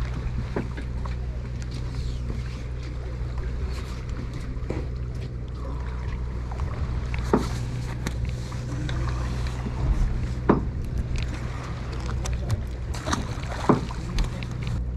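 A boat's engine running at idle with a steady low hum, and a few sharp clicks and knocks scattered through it, the loudest about ten and a half seconds in.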